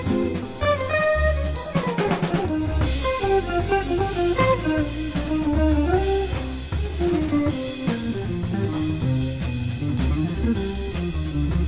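Jazz instrumental music: a melodic line over walking double bass and a busy drum kit with snare, bass drum and cymbals, and electric guitar in the band.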